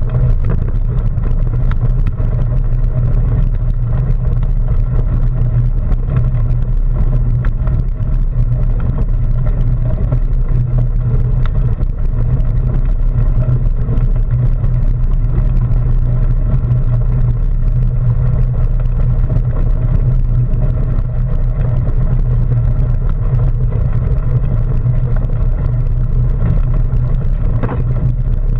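Steady low rumble of riding noise on a bicycle-mounted GoPro Hero3: wind buffeting the camera and the bike's tyres rolling over gravel.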